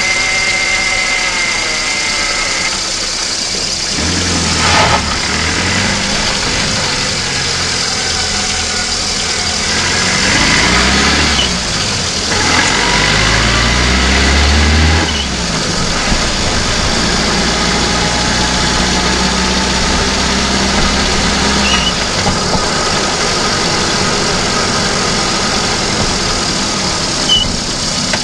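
VAZ-2109 engine running, heard from inside the engine bay while the car is driven. Its pitch rises and falls several times as it revs up and drops back, with a few short knocks.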